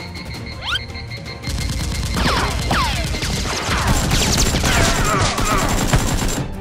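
Rapid bursts of gunfire, mixed with falling whizzing ricochet sounds, starting about a second and a half in over background music.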